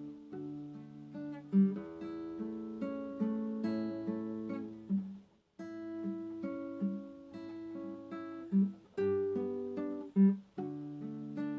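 Acoustic guitar playing slow, gentle fingerpicked arpeggios, each note ringing out and fading. There is a short break about five and a half seconds in, and a few low notes stand out louder than the rest.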